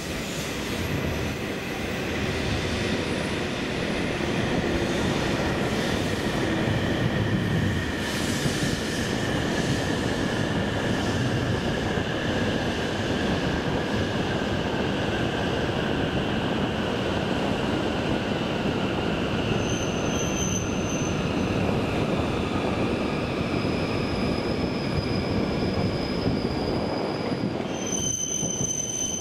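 E7 series Shinkansen train arriving at low speed and slowing: a steady rumble of wheels on rail with a whine that falls in pitch as it brakes. Near the end come high wheel squeals, and the rumble drops away as the last cars pass.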